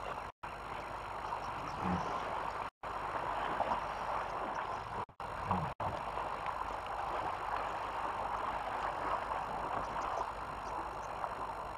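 Steady outdoor background hiss picked up by a bush webcam's microphone, broken by several brief dropouts in the audio, with two short low sounds about two and five and a half seconds in.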